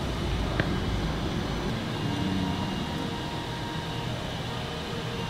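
Claw crane machine running as its claw is lowered toward the prizes: a steady mechanical hum, with a single click about half a second in.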